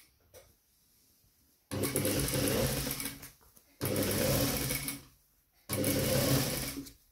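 Mitsubishi industrial sewing machine stitching a trouser hem close to the edge, in three runs of a second or so each with short stops between them.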